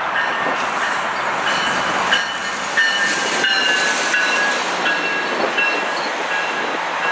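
GO Transit diesel locomotive and bilevel double-deck coaches rolling past close by: a steady rushing rail noise. Thin high-pitched wheel squeals come and go through the middle of the pass, with a few sharp knocks.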